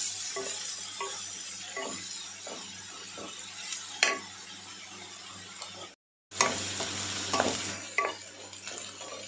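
Chopped onions sizzling in hot ghee in a nonstick kadhai, stirred and scraped around the pan with a spatula in short, irregular strokes as they fry toward golden. The sound cuts out completely for a moment about six seconds in.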